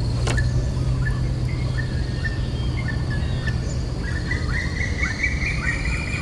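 A bird calling in short, repeated chirps, about two a second and busier in the second half, over a steady low hum and a thin, steady high-pitched insect whine. A single sharp click comes just after the start.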